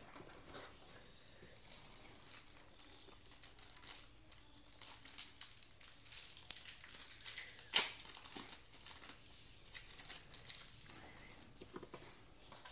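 Plastic accessory wrapping crinkling and tearing as small phone accessories are unwrapped by hand, with one sharp snap about two-thirds of the way through.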